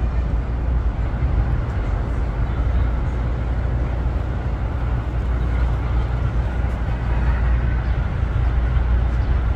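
Steady outdoor city ambience: a continuous low rumble with a hiss over it.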